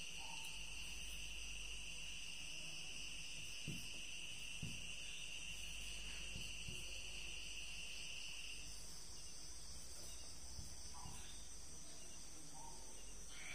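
Steady, faint, high-pitched buzzing drone made of several tones, the lowest of which cuts off about two-thirds of the way through. A few faint soft taps are heard, the marker touching the whiteboard as it writes.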